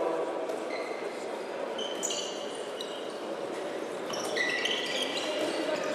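Sports shoes squeaking on a hall floor as handball players move, with a handball bouncing in the echoing hall. The squeaks cluster about two seconds in and again from about four seconds on.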